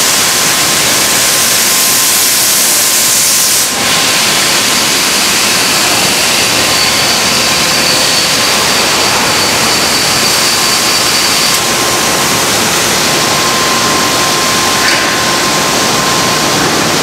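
Industrial thermoforming machinery running with a loud, steady rushing hiss. A thin steady whistle runs through it, and a higher whistle joins about four seconds in and stops about eleven and a half seconds in.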